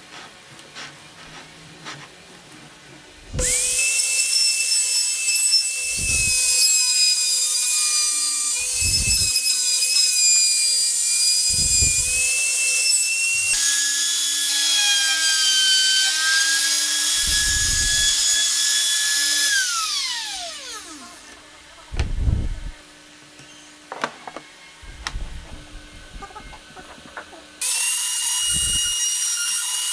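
Compact trim router running at full speed with a steady high whine as its bit cuts into wood, guided along a sliding-rail jig. About twenty seconds in it is switched off and winds down with a falling pitch; after a few knocks it comes back on near the end.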